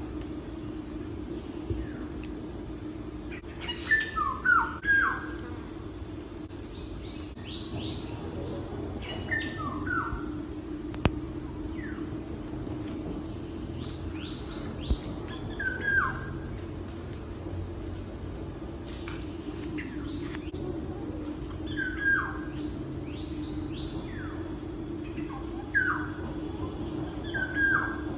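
Birds chirping, short falling chirps every couple of seconds, over a steady high insect drone and a low hum.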